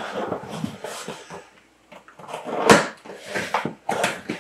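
A cardboard box being opened and its contents handled: rustling and scraping, a short pause, then several sharp knocks and thumps.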